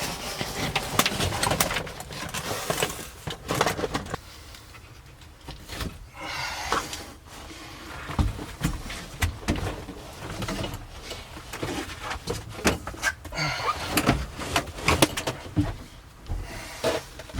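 Irregular knocks, clicks and rustling as interior trim, parts and debris are handled and pulled out of a car's cabin.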